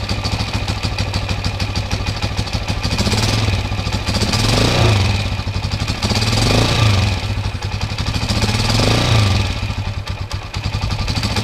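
Honda TMX 155's single-cylinder four-stroke engine idling with its valve clearance not yet adjusted, revved briefly three times, each time rising and falling back to idle.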